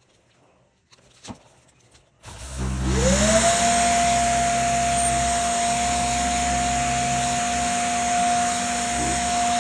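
An electric power-tool motor starting up: its whine rises in pitch for about a second, then it runs steadily. Before that there is a short quiet stretch with a single click.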